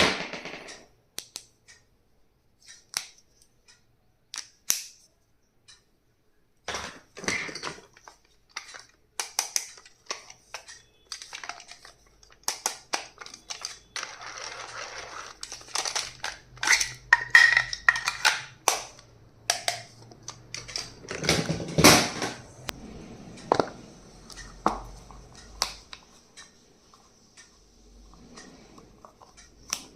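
Stationery and its packaging being handled during an unboxing: irregular sharp clicks and taps, with stretches of rustling and crinkling packaging.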